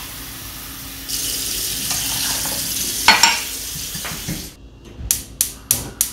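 Tea boiling in a pan, with a steady sizzling hiss that swells about a second in and rushes louder about three seconds in. It stops short and is followed near the end by five short splashy bursts, about three a second.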